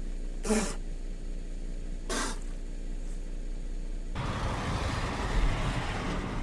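Car running, heard from inside the cabin as a steady low hum, with two brief sharp noises in the first few seconds. About four seconds in, it jumps to a louder rumble of engine and road noise.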